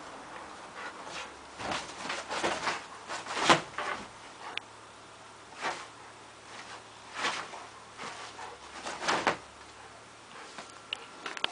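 A Rottweiler moving about on a quilt-covered bed, rustling and scuffing the bedding in short irregular bursts as it noses and paws at it. The loudest scuff comes about three and a half seconds in.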